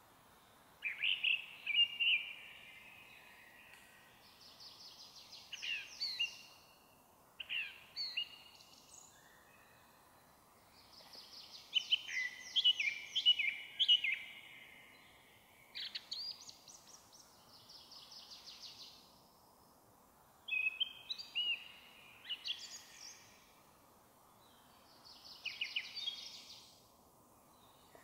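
Song thrush singing: about seven separate phrases of quickly repeated high notes, each a second or two long, with short pauses between them, over a faint steady hiss.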